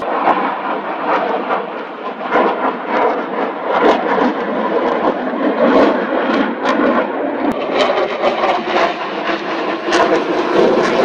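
Fighter jet flying overhead: loud, continuous jet engine noise with frequent sharp crackles through it.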